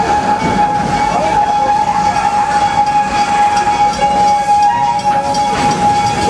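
Park excursion train with open-sided passenger cars rolling along its track through a curve, with a steady high-pitched wheel squeal over the running noise.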